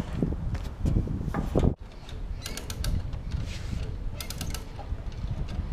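A low rumble that stops abruptly about two seconds in, then a hand ratchet on the mast-hauling line clicking in two short runs of rapid clicks as the mast is drawn up.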